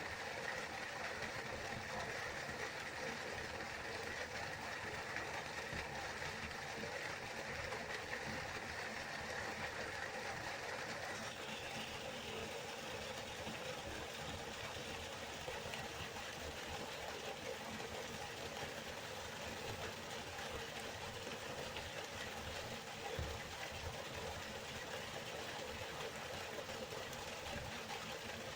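River water flowing and rushing steadily, a continuous even noise; about eleven seconds in its tone shifts slightly brighter.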